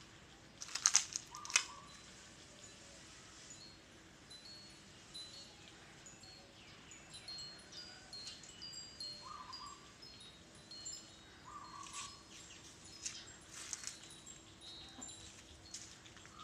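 Birds calling in a tree canopy: many short, high, tinkling notes, with a lower short note repeated every few seconds. A brief burst of sharp crackles comes about a second in.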